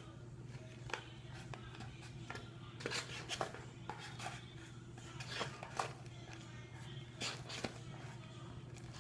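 A stirring utensil scraping and tapping irregularly against the inside of a cup, working slime off its sides.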